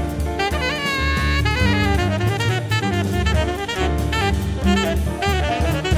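Background music: jazz with saxophone over a drum kit.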